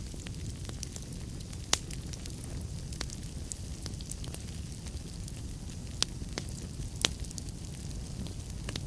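Wood fire burning in a fireplace: a steady low rumble under scattered sharp crackles, with three louder pops.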